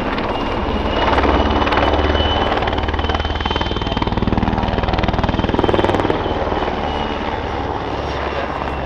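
PZL W-3 Sokol helicopter in flight: the rapid, steady beat of its main rotor over the high whine of its twin turboshaft engines, growing louder about a second in and easing off after about six seconds as it banks through a display manoeuvre.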